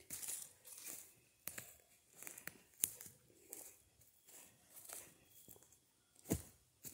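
Footsteps crunching through dry leaf litter on a forest floor: irregular steps, with a louder crunch about six seconds in.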